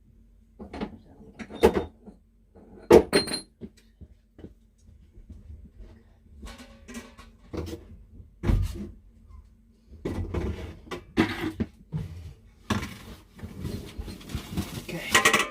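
Irregular knocks, thumps and scraping as a new well pressure tank is shoved and wrestled into a tight space. The hits are loudest about 2 and 3 seconds in, with busier scraping and bumping in the last few seconds.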